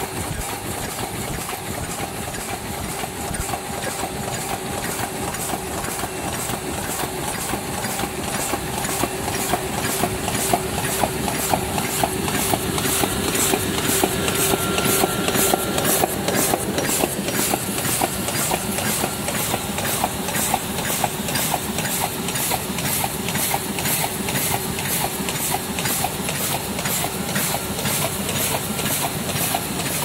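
Automatic double-crimping paper bowl forming machine running: a steady mechanical hum with an even, rapid rhythm of clacks from its cycling forming mechanism.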